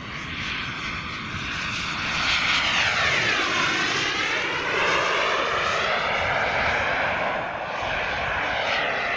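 JetsMunt VT80 model gas turbine on a radio-controlled scale jet during a flyby: a continuous jet whine and rush that grows louder about two seconds in, with a sweeping fall-then-rise in tone as the aircraft passes.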